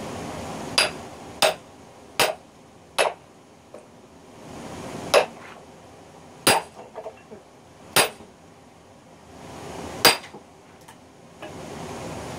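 Hammer striking the back of a hatchet driven into an oak log as a splitting wedge: about eight sharp, ringing metal-on-metal blows. The first four come quickly, the rest more spaced out.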